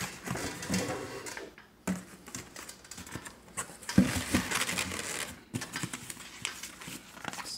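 Cardboard shipping box being opened and a printed paper sheet handled over a styrofoam liner: irregular rustling and scraping with scattered clicks and a sharp knock about four seconds in.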